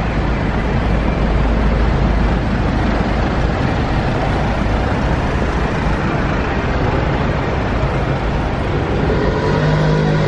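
Heavy city road traffic: double-decker buses, taxis and cars running past close by in a steady low rumble, with an engine note standing out near the end.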